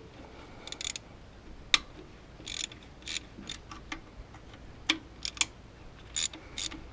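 Hand tools working the lug nuts on a tractor's rusty circuit breaker: scattered metal clicks and short scrapes, irregularly spaced, with one sharp click about two seconds in.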